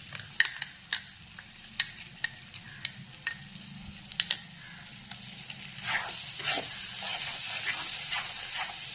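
A spoon clicking against a small bowl and the rim of a nonstick wok as a thick coconut and poppy-seed paste is scraped in, followed from about six seconds in by a metal spatula scraping and stirring the paste into the fried masala.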